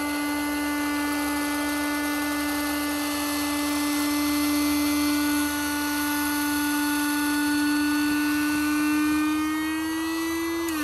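Luno's small 12-volt electric air pump running steadily, a kind of loud motor hum and whine, as it blows up an inflatable Luno pillow through its valve. Its pitch creeps up slightly near the end, then it is switched off and winds down.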